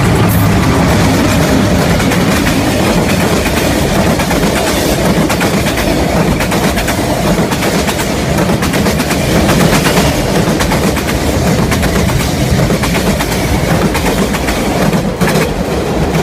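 Toy freight train with container wagons running close past on plastic track, its wheels clattering rapidly and steadily over the rail joints.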